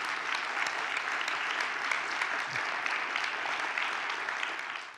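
Audience applauding at the close of a talk: steady, dense clapping that cuts off abruptly at the end.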